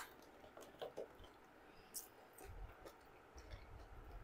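Near silence with faint eating noises: a few soft clicks and smacks from chewing.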